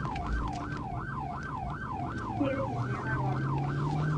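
Police cruiser siren in fast yelp mode, sweeping up and down about four times a second; it switches over from a slow wail right at the start. A low steady hum runs underneath.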